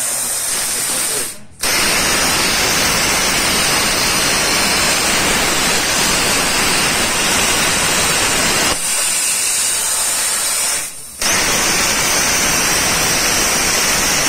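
CNC plasma cutter torch cutting sheet steel: a loud, steady hiss of the plasma arc and air jet. The hiss cuts off abruptly twice, about a second and a half in and again about eleven seconds in, and starts again at once each time.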